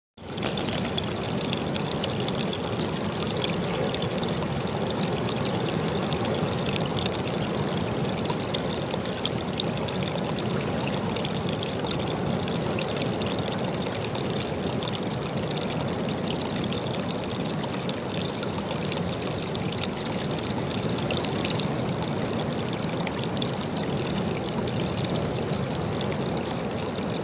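Small stream of water pouring steadily over a rock ledge into a pool, a continuous splashing trickle.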